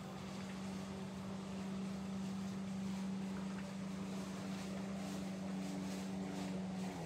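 A steady mechanical hum holding one constant pitch, over a faint even hiss.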